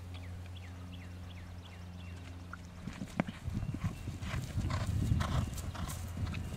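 A Welsh cross gelding's hoofbeats on grass. About three seconds in there is a sharp knock as he comes down off a bank, then a run of cantering strides.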